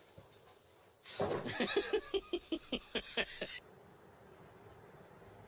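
A person laughing in a quick run of about ten short 'ha' pulses. It starts about a second in and is cut off abruptly partway through.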